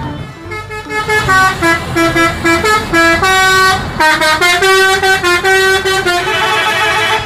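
A bus's multi-tone musical horn of the Indonesian 'telolet' kind, playing a tune of short and held notes that step up and down in pitch.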